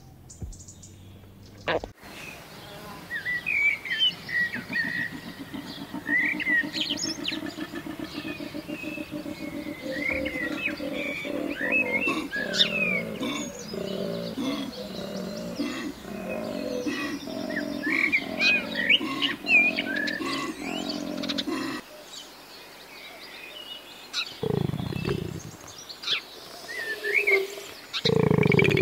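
Koala bellowing: a long, deep, rapidly pulsing rasp lasting about twenty seconds, followed near the end by two short low grunts. Birds chirp throughout.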